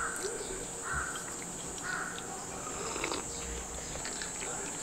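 A bird calling about once a second, four short calls, over a steady high hiss.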